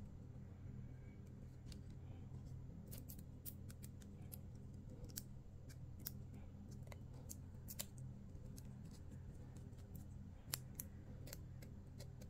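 Scattered small plastic clicks and taps as a ballpoint pen is handled and its parts fitted together, irregular and sharp, the loudest about ten seconds in. A steady low hum runs underneath.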